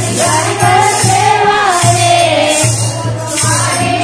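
A group of women singing a Marwari devotional bhajan together, with jingling hand percussion keeping a steady beat about twice a second.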